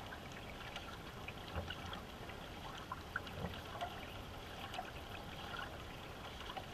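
Water washing and trickling along the hull of a paddled racing canoe under way, with a few soft thumps.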